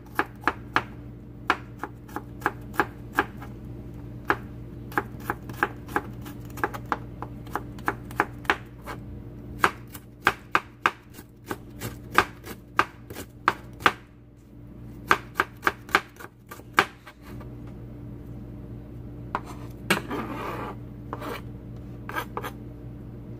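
Chef's knife slicing garlic cloves and shallots on a plastic cutting board: quick runs of sharp taps as the blade strikes the board, with short pauses between runs.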